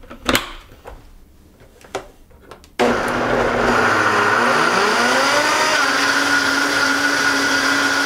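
Vitamix Ascent A2500 blender switching on abruptly about three seconds in and blending greens, fruit and water into a smoothie, its motor rising in pitch over a few seconds and then running steady. Before it starts there are a few sharp clicks as the lid is pressed on.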